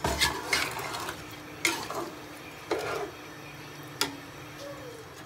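Slotted metal spoon stirring a soupy dish in an aluminium pot, knocking and scraping against the pot's side about once a second, five times in all.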